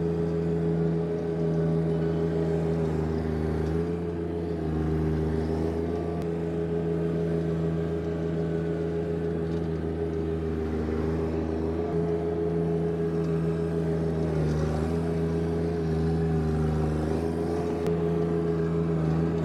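John Deere 1025R subcompact tractor's turbocharged three-cylinder diesel running steadily under load while its front blade pushes snow into a pile. The engine note sags briefly twice as the blade loads up.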